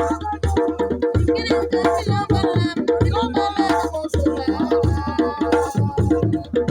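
Music of drums playing a busy, steady rhythm, with a pitched melodic part and wavering high notes over it.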